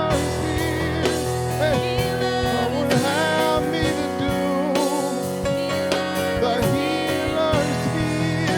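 Gospel music: a voice singing over held keyboard or organ chords, with guitar and drums.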